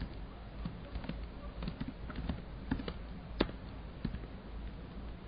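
Computer keyboard keys tapped in an irregular run as a vim search command is typed, the loudest keystroke about three and a half seconds in, over a low steady hum.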